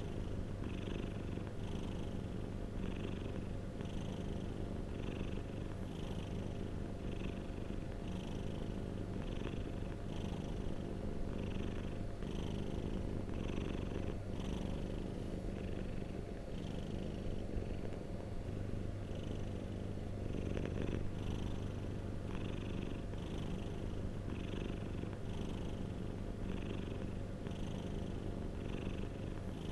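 Domestic cat purring steadily, with a soft pulsing rise and fall about three times every two seconds.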